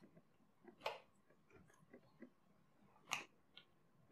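Faint close-miked chewing of fast food, with small mouth clicks and two sharper crunches, about a second in and about three seconds in.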